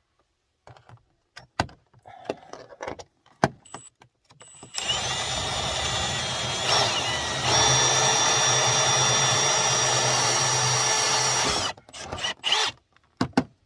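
Power drill with a bit of over an inch running for about seven seconds, boring out a 3/4-inch hole through a house wall; its tone changes partway through. Scattered clicks and knocks of handling come before and after it.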